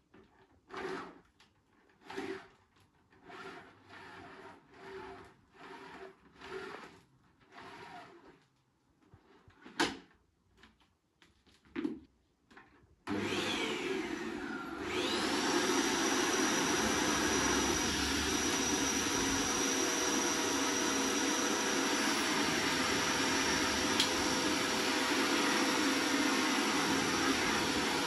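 A canister vacuum cleaner is switched on about halfway through. Its motor whines up to speed over a couple of seconds and then runs steadily. Before that there is a string of short handling knocks and scuffs about a second apart, with one sharp click.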